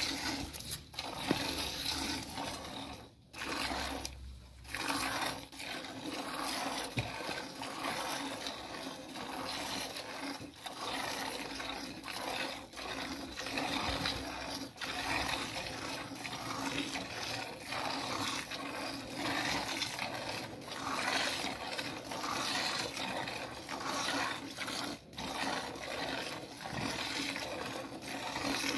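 Cow being milked by hand into a plastic bucket: squirts of milk hissing into the pail, swelling and fading again and again as the teats are squeezed.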